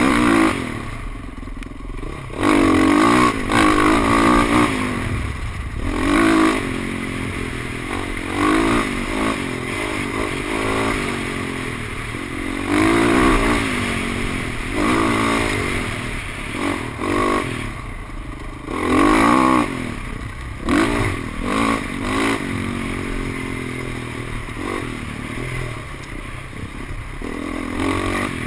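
Dirt bike engine running over rough trail, revving up and down with the throttle, with loud surges every few seconds as it accelerates.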